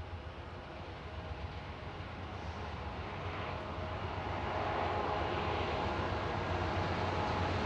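GE C40-9W diesel-electric locomotives leading an intermodal freight train approach under power: a steady engine drone with a low hum, growing steadily louder as the train nears.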